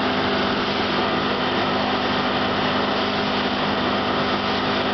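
Outboard motor running steadily at speed, its even engine note over a constant rush of wind and churning water from the wake.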